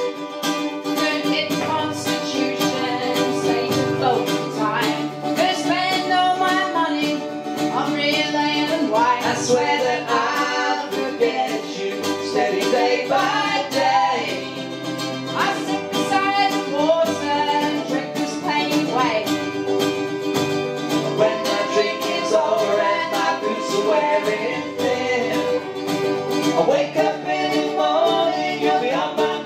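Country-folk song played on acoustic guitars and fiddle, with a man and a woman singing.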